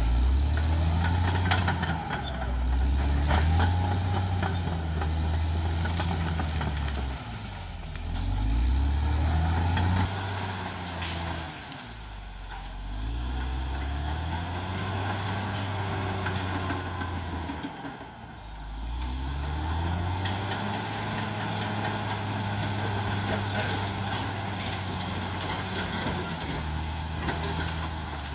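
Caterpillar D6R XL bulldozer's diesel engine working under load, easing off and revving back up several times as the dozer pushes.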